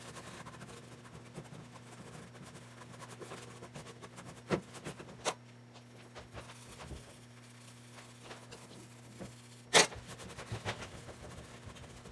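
Faint rustling of a paper towel being rubbed over a foam prop to wipe off wash. Three sharp knocks of things being handled and set down: two together a little before the middle and the loudest near the end, all over a steady low hum.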